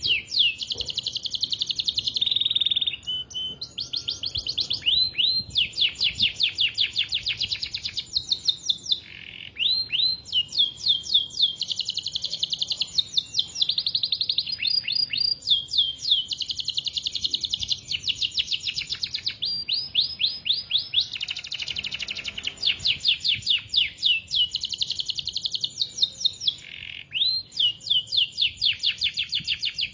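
Domestic canary singing continuously: long phrases of fast trills, rapid runs of the same high note repeated many times a second, each phrase lasting a few seconds with short breaks between them.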